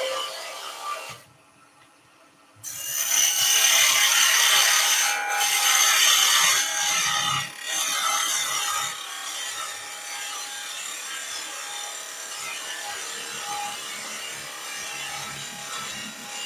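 A parting tool cutting into a small spindle spinning on a wood lathe, shavings hissing off the wood as it is cut down to a set diameter. The sound drops out briefly about a second in, comes back loudest for several seconds, then settles to a steadier, quieter cut.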